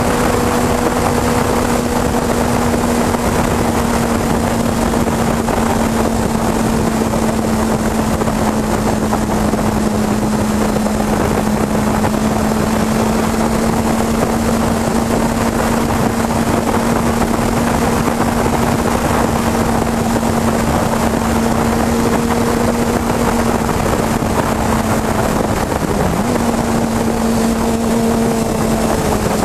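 Suzuki GSX sportbike engine holding a steady drone at cruising speed, under heavy wind rush buffeting the microphone. Near the end the engine pitch dips briefly and settles again.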